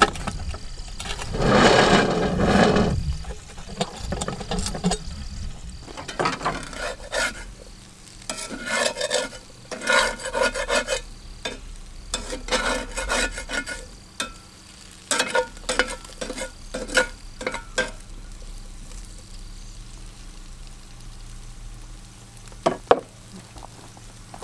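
A metal spatula scrapes and stirs food frying in a cast-iron skillet over a campfire, in repeated short strokes through the middle, over a quieter sizzle that runs on after the stirring stops. About two seconds in there is one longer, louder grinding scrape of the coal-covered cast-iron Dutch oven lid being turned with a lid lifter. Two sharp clicks come near the end.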